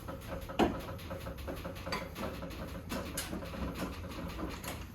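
Scattered light clicks and taps, with one sharp knock about half a second in, over a low steady hum.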